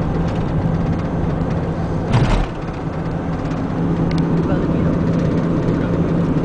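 Steady drone of a moving vehicle heard from inside the cabin, engine hum and road noise, with a single short thump about two seconds in.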